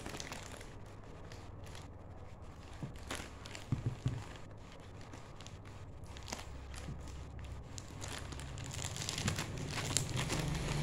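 Plastic packaging crinkling and rustling as it is handled and pulled open, with a few sharper crackles about four seconds in.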